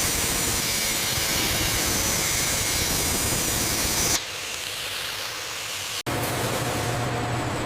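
Loud, steady hiss that cuts off abruptly about four seconds in to a quieter rushing noise. After a brief dropout about six seconds in, a different rushing noise with a low hum takes over.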